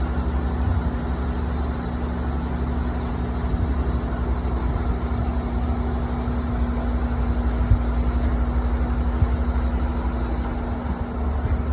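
Steady mechanical hum with a constant low tone and a deep rumble beneath it, unchanging throughout.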